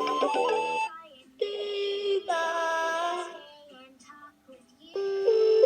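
Electronic toy sound chip playing tinny tunes and synthesized singing in short phrases of held notes with pauses between them. A loud held note starts near the end.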